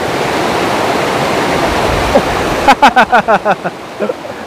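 Mountain stream rushing over rocks and a small cascade, a loud, steady rush of water. A little under three seconds in, a person's voice cuts through in a quick run of about seven short bursts.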